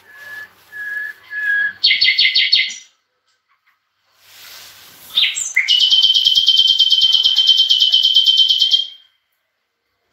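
Caged songbirds singing: three short whistled notes, then a quick one-second trill. After a pause comes a rising note and a long, fast, even trill lasting about three seconds.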